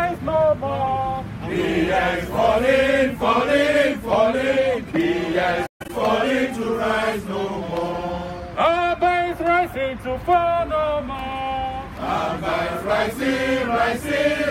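A crowd of protesters singing a protest song together in unison, the sound cutting out for an instant near the middle.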